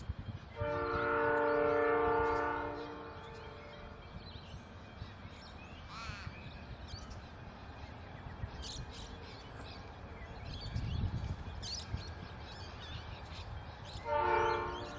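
Diesel locomotive air horn sounding a chord of several tones: one long blast lasting about two and a half seconds, then a short blast near the end, from an approaching G-class diesel-electric locomotive.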